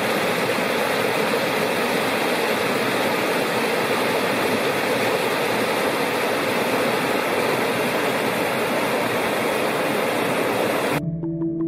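Big Creek's rushing water: a steady, loud hiss of a mountain stream running over rocks, ending abruptly near the end.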